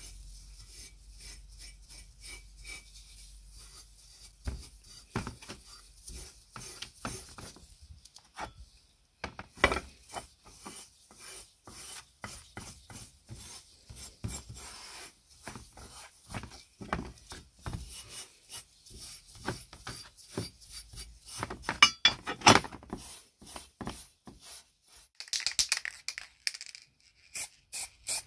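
Repeated hand strokes of rubbing or filing on a workpiece, irregular at first and turning into a quicker, even back-and-forth near the end. A brief hiss comes shortly before the end.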